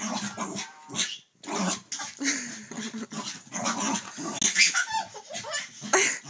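Small dog barking and growling in short, irregular bursts.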